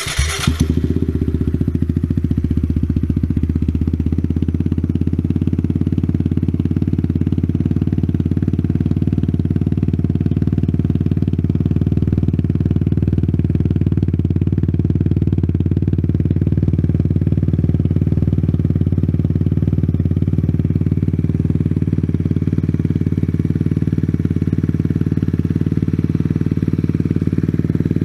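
Kawasaki Z125 Pro's 125 cc single-cylinder four-stroke engine, fitted with an aftermarket Yoshimura exhaust and Chimera intake, catching right at the start and then idling steadily.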